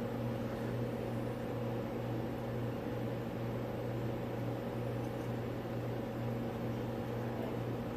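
A steady low hum with an even hiss underneath, unchanging throughout: the constant drone of an appliance or motor running in the room.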